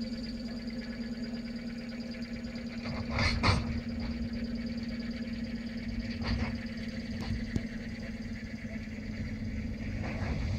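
Electric suburban train moving slowly past, with a steady electrical hum over the low rumble of its wheels and a brief loud clatter about three seconds in.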